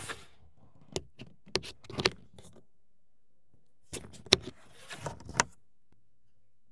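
A car's built-in rear-door window sunshade being pulled up out of the door sill and hooked in place: two short runs of plastic clicks and rattles, the second about four seconds in.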